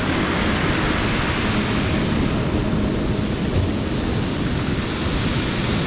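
Steady wash of ocean surf mixed with wind buffeting the microphone, an even rushing noise with no distinct breaks.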